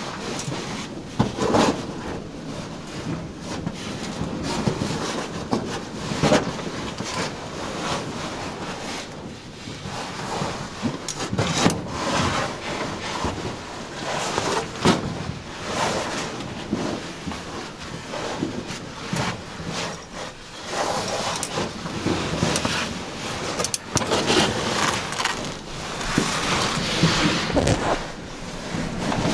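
A caver's suit and hauled bag scraping, rustling and knocking against rock while squeezing through a narrow cave passage: irregular scuffs and bumps, with louder knocks now and then.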